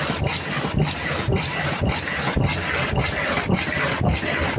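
Automatic 3-ply earloop mask machine running: a steady mechanical hiss and clatter with a regular beat of about two machine cycles a second.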